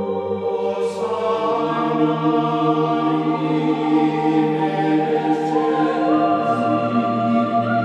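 Background music: chant-like voices holding long sustained notes over a steady drone, shifting to new pitches a couple of times.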